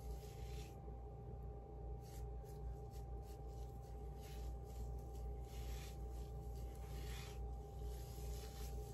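Soft, irregular rubbing and swishing of hands working a creamy deep conditioner through wet hair, over a steady electrical hum.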